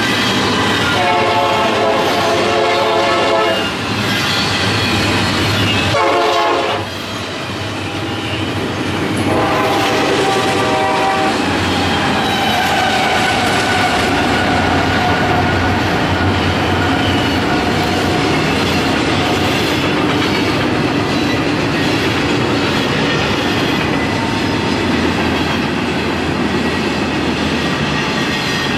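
Union Pacific double-stack container train passing at speed. A multi-chime train horn sounds in three blasts over the first dozen seconds, over the steady rumble and clickety-clack of the wheels and well cars. A mid-train diesel locomotive rumbles past.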